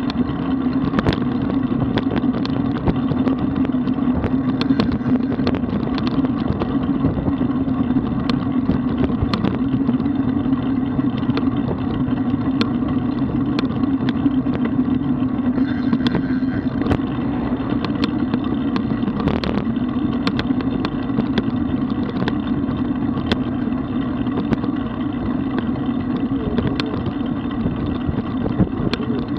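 Steady road and wind noise from riding a road bicycle: a constant low drone with scattered small knocks and rattles.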